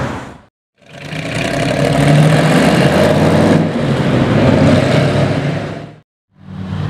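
Hot-rodded 1938 Ford with a Chevrolet engine pulling away, its exhaust note climbing slightly and then easing off about halfway through. The sound cuts out briefly about half a second in and again shortly before the end.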